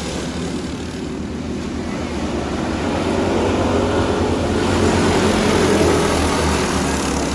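Several racing go-karts' small engines buzzing as the pack runs around the dirt oval, growing louder from about halfway through as the karts pass close by, then easing slightly near the end.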